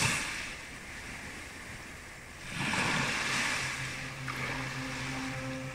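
Sea waves washing in, two swells of surf, with a low held music note coming in about halfway through.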